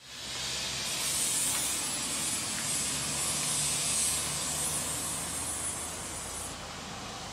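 Steady outdoor background noise: an even hiss with a faint low hum under it; the highest part of the hiss stops about six and a half seconds in.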